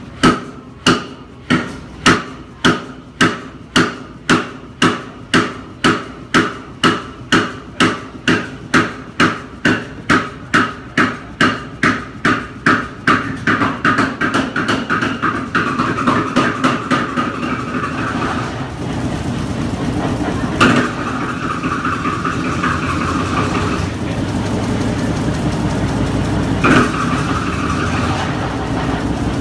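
Large old Fairbanks Morse multi-cylinder stationary engine coming to life from a cold start: sharp firing beats, about two a second at first, come faster and softer until they merge into a steady run after about fifteen seconds. Two single loud knocks stand out late on.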